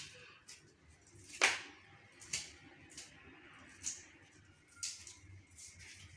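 Fresh maize kernels being stripped off the cob by hand: a handful of short, crisp scraping clicks at irregular intervals.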